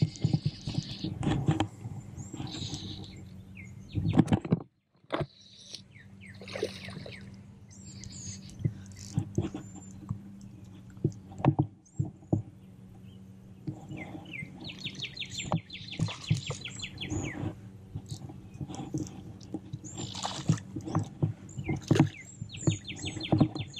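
Fly reel's click-and-pawl drag ratcheting in two runs of rapid, even clicks while a hooked fish is played in, with scattered knocks from handling the rod and line. Birds chirp now and then.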